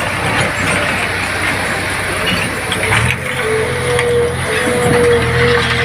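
Heavy vehicle's diesel engine running steadily. Its note changes about three seconds in, and a steady whine joins shortly after.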